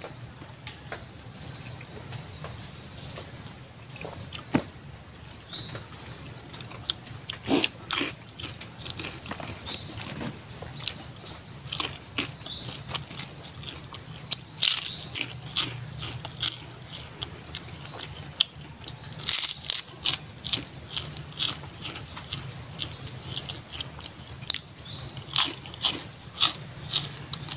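Close-up mouth sounds of eating: crunching and chewing of kerupuk kulit skin crackers and rice with greens, made up of many short sharp crunches. Behind them run a steady high insect drone and repeated high chirps from birds or insects.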